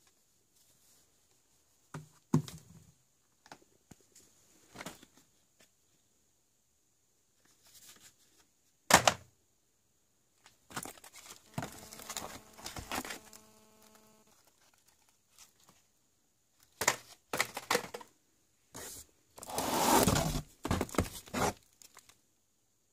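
Fireworks packaging being handled in a cardboard box: plastic bags and foil wrapping crinkling and rustling, with scattered knocks of boxes being moved and set down. One sharp knock comes about nine seconds in, and the longest, loudest rustle comes near the end.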